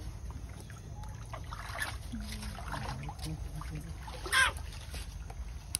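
Water lapping and splashing as a baby monkey paddles in a shallow pond, with one brief sharp burst of sound about four and a half seconds in.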